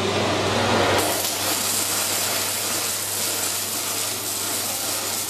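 Robotic arc welding: a steady sizzling hiss over a low hum, getting brighter and harsher about a second in.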